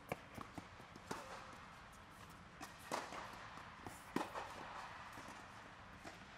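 Tennis rally on an indoor court: sharp racket hits and ball bounces every second or so, the loudest about three and four seconds in, echoing under an air-supported dome.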